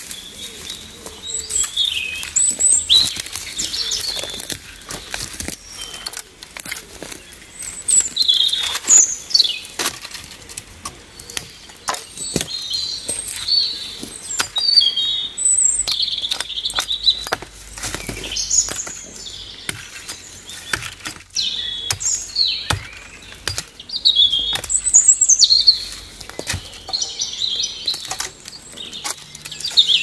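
Small birds chirping and whistling repeatedly over the crackle and snap of dry brush and twigs. Irregular sharp knocks and snaps come as a branch is trimmed with a hatchet.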